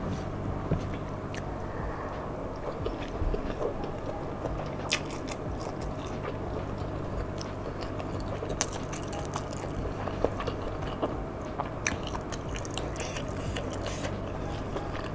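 Close-up chewing and mouth sounds of a person eating nasi padang by hand, with scattered short clicks and smacks, over a steady low hum.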